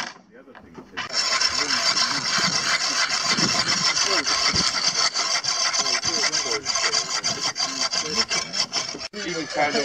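Steady rasping scrape of a tool being worked hard against a surface. It starts about a second in and breaks off suddenly near the end.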